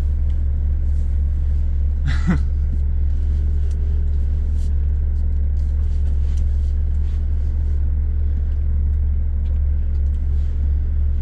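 Scania S500 truck's diesel engine running with a steady low drone, heard inside the cab while the truck is being pulled free. There is a short noise about two seconds in.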